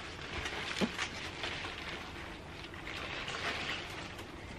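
Rustling of large, crisp napa cabbage leaves being handled, with scattered faint crackles.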